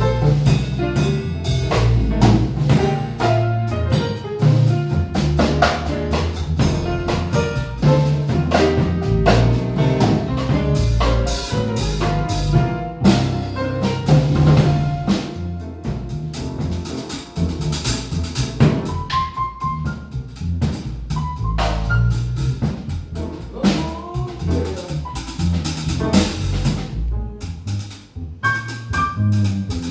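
A piano, bass and drum kit trio playing, with frequent drum and cymbal strikes over a walking low bass line and piano notes.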